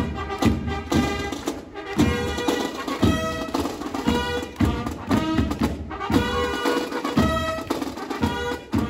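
A Spielmannszug (German marching band) of drums and fanfare trumpets playing a march, the drums beating a steady pulse about twice a second under the sustained trumpet tones.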